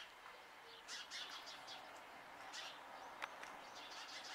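Faint bird chirps outdoors: short, high calls at irregular intervals.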